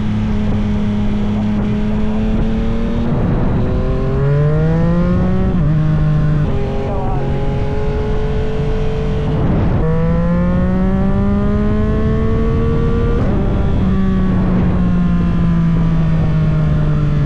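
Yamaha MT motorcycle engine under way, its revs climbing and then breaking off to a lower pitch at each gear change, four or five times. Near the end the pitch sags slowly.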